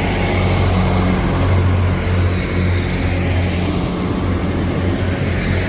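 Transport for Wales Class 158 diesel multiple unit running at the platform: a steady, loud diesel engine drone with a low hum and a broad noise haze.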